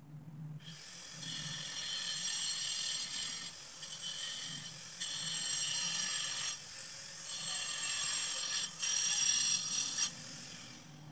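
Electric angle grinder starting about half a second in and running with a high whine, its disc working at the concrete floor, so the level dips and surges several times as it is pressed in and eased off. It is switched off near the end and winds down.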